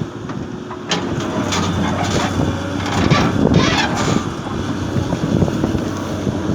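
Komatsu 220 excavator's diesel engine running steadily under work, with several short knocks and scrapes in the first four seconds.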